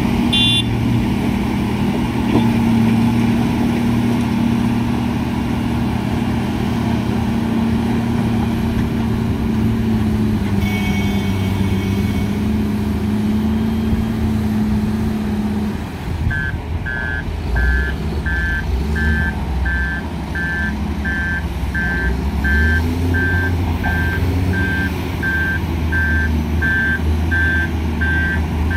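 Heavy diesel engines of excavators and dump trucks working together, with the engine note rising and falling as they load. About halfway through, a reversing alarm starts beeping steadily, a little more than one beep a second, and keeps going.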